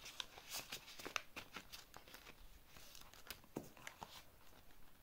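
Faint scratching and a scattering of small ticks from a pen colouring in boxes on a paper savings-challenge tracker, with light paper rustling.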